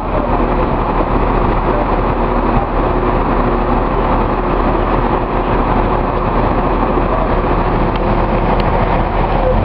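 Heavy truck engine running steadily close by, with an even low hum and no change in speed.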